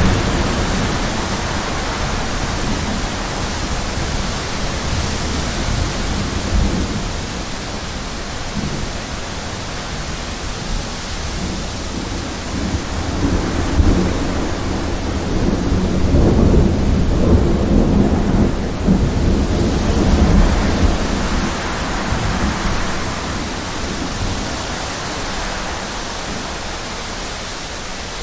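Thunderstorm: steady rain throughout, with a long rolling rumble of thunder that swells in the middle, peaks, and dies away some seconds before the end.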